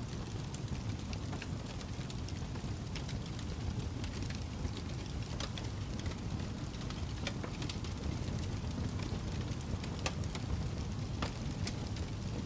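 Wood fire burning in a fireplace: a steady low rumble with frequent sharp, irregular crackles and pops.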